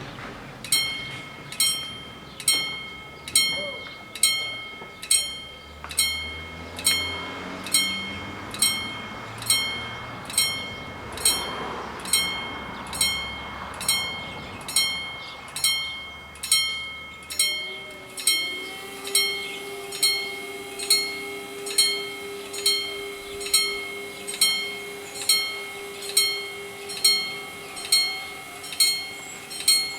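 Italian level-crossing warning bells striking steadily, a little over once a second, each stroke ringing out before the next, signalling that the barriers are coming down for an approaching train. A vehicle passes partway through, and a steady hum joins in the second half.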